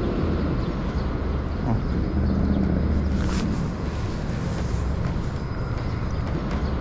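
A steady low engine drone, such as a distant motor or vessel engine, running under outdoor background noise.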